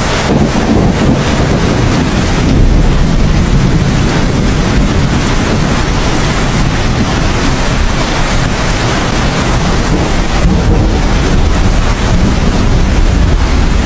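Heavy rain falling steadily, with a deep rumble of thunder underneath that swells slightly a few seconds in and again near the end.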